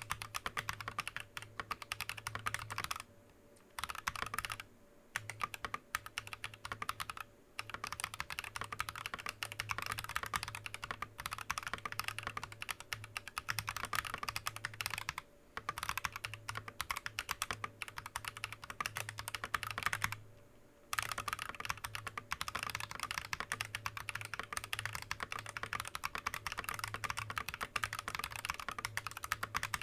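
Fast, continuous typing on a TM980 mechanical keyboard with Akko Lavender tactile switches and Drop Keysterine keycaps: a dense run of keystroke clicks broken by a few brief pauses, the longest about half a second around two-thirds of the way through.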